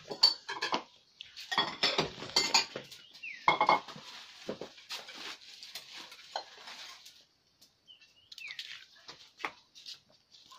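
Dishes and metal cookware clattering and clinking as they are handled, most busily in the first few seconds, with plastic bags rustling.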